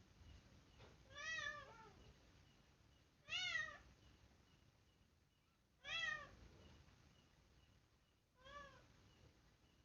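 Cat meowing four times, roughly every two and a half seconds, each meow a short call that rises and falls in pitch.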